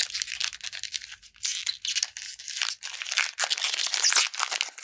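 Close-up crinkling and rustling of a Pokémon trading card booster pack being handled: the foil wrapper and cards scraping in a quick run of short bursts.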